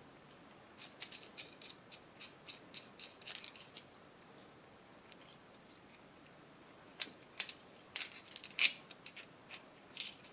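Light metallic clicks and clinks of a steel rod, hex key and small steel spindle-stop parts being handled against one another. They come in two clusters, one about a second in and another from about seven seconds.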